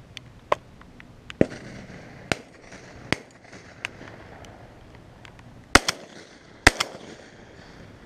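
Shotgun shots ring out over a dove field, some faint and distant. Two louder double reports come close together in the second half.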